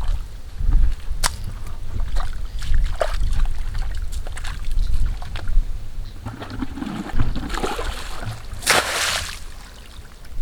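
Splashing and sloshing in shallow muddy water, with scattered small splashes and clicks and one louder splash about nine seconds in, over a low rumble of wind on the microphone.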